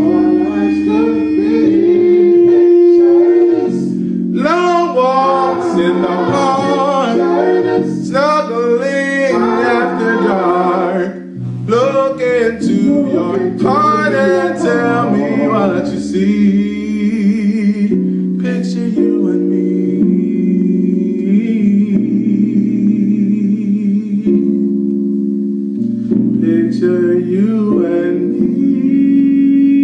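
Man singing a slow soul ballad with bending, melismatic vocal runs over a backing track of held chords. The voice is strongest in the first half, drops back after about 16 seconds to leave mostly the accompaniment, and returns near the end.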